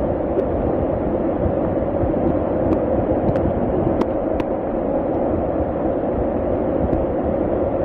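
Floodwater rushing down a street with heavy rain, a steady unbroken rush of water with a few faint ticks over it.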